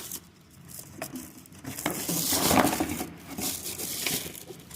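Packaging being handled during an unboxing: rustling and crinkling, louder around the middle, with a few light clicks and knocks.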